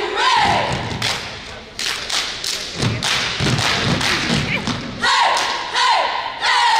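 Cheerleading squad performing a stomp-and-clap cheer on a wooden gym floor: a unison shouted chant, then several seconds of stomps and hand claps, with the shouted chant coming back in about five seconds in.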